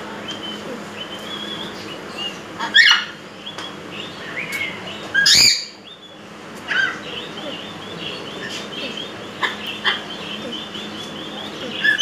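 Many caged birds chirping and chattering without pause. Two loud, harsh squawks stand out about three and five seconds in, and a few shorter sharp calls come later.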